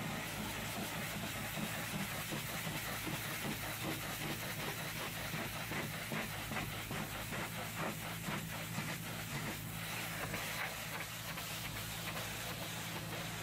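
High-pressure washer jet spraying water against a minibus's sheet-metal side panels and windows: a steady hiss that flickers as the jet sweeps across the surfaces, over a steady low hum.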